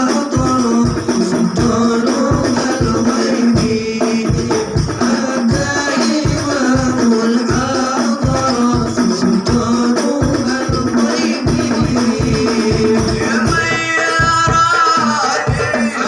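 Hadroh-style sholawat music: hand drums and jingling frame drums beat a fast steady rhythm under a sung melody.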